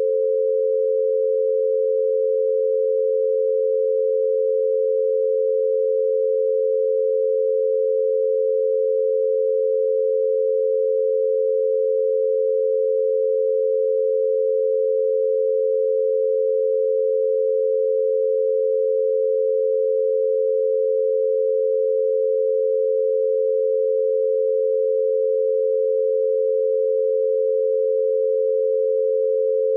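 An 88 Hz binaural beat: two steady, pure tones, one a little below and one a little above 500 Hz, 88 Hz apart, one for each ear.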